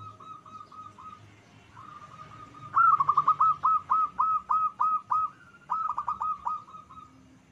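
Zebra dove (perkutut) song: rapid, evenly spaced coo notes. Soft runs come first, then from about three seconds in a much louder run of about a dozen quick notes, and a shorter run of about five notes near six seconds.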